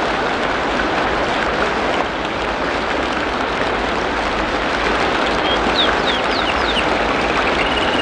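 Steady rain falling. About two-thirds of the way through, a bird gives a few quick high chirps, and near the end it starts a longer, high trilled note.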